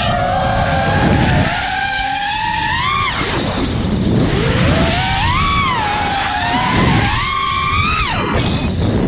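6S FPV freestyle quadcopter's motors and propellers whining, heard from the onboard camera, the pitch swinging up and down with the throttle: it climbs three times, the last rise near the end falling off sharply. Wind rumbles on the microphone underneath.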